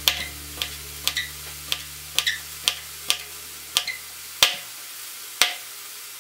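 Kitchen knife chopping cucumber into small cubes on a plastic cutting board: sharp taps of the blade on the board, about two a second, some in quick pairs.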